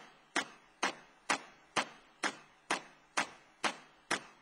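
Steady clock-like ticking in the soundtrack music: sharp even clicks, about two a second, with no other instruments playing.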